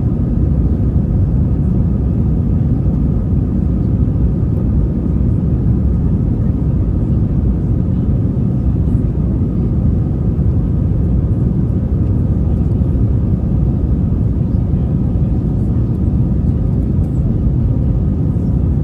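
Airbus A320 cabin noise: a steady, loud rumble of the jet engines and airflow, with a faint steady whine above it.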